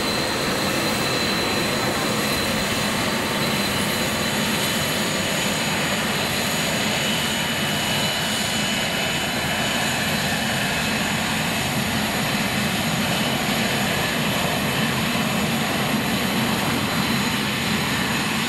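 Business-jet turbofan engines at low taxi power: a steady rushing hum with high whines over it that shift a little as the jets move.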